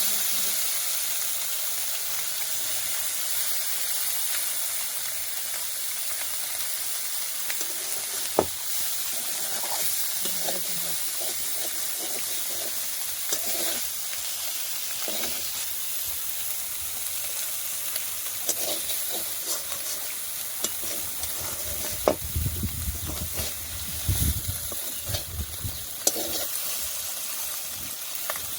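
Small fish frying in hot oil with a steady sizzle. Now and then a utensil knocks and scrapes against the pan, most often in the last third.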